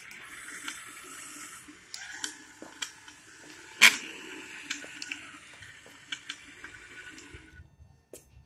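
Fire Bird V robot's geared DC drive motors running with a steady whir, broken by scattered sharp clicks and one loud click about four seconds in. The whir stops suddenly about seven and a half seconds in.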